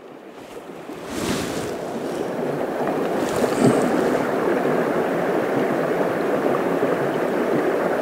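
Fast-flowing shallow river rushing over stones: a steady wash of water that swells up over the first second or so and then holds even.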